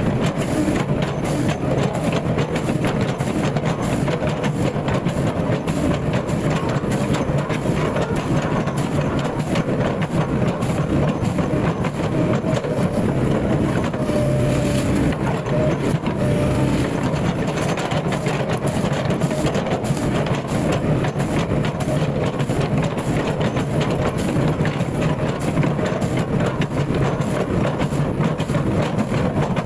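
Hydraulic excavator's diesel engine running steadily under load, with a dense, continuous crackle and crunch as oil palm trunks are chipped.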